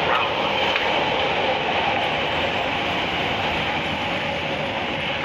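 CTA 'L' rapid-transit train running on the rails, a steady rumble of wheel and track noise.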